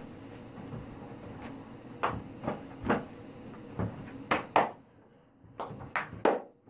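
Irregular knocks and thumps in a small tiled room, about nine in all, starting about two seconds in, with the loudest two near the middle and one near the end.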